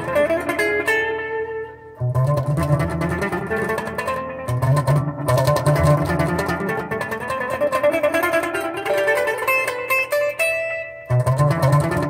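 Electric guitar played through a Framus Dragon tube amp head's clean channel: improvised picked single notes over low chords, with fresh low chords struck about two seconds in, around the middle and again near the end.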